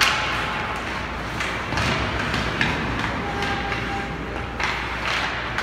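Game noise echoing in a large hall: several sharp knocks and clatters spaced a second or so apart over a steady background din, with faint distant voices.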